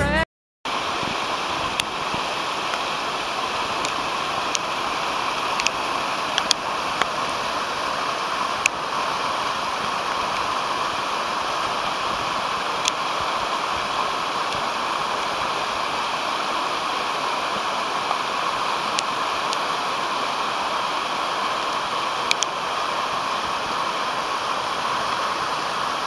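Mountain torrent rushing over boulders and small cascades: a steady, even rush of water that starts abruptly about half a second in, with a few faint ticks of splashing.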